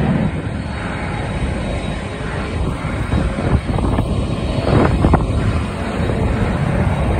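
Jet aircraft engines running, a loud steady rushing noise.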